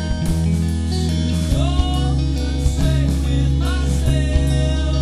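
Rock song with guitar and drums, with a few sliding notes about a second and a half in and again near four seconds.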